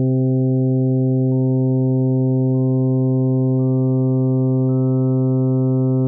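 Additive synthesizer sounding a steady tone on a 130 Hz fundamental, with higher harmonics added one at a time: five enter about once a second, each with a faint click, and the partials fuse into one richer pitched tone.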